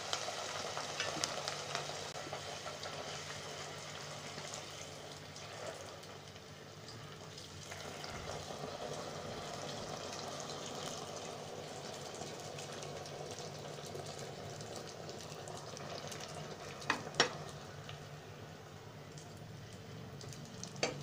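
A vellai poori of rice and toor dal dough deep-frying in hot oil in an aluminium pot, with a steady sizzle. Two sharp taps of the slotted ladle against the pot come in quick succession about three-quarters of the way through.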